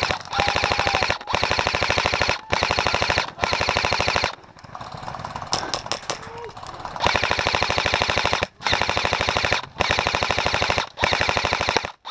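Airsoft gun firing on full auto in repeated bursts of about a second each, roughly eight bursts, with a quieter pause of a couple of seconds about halfway through.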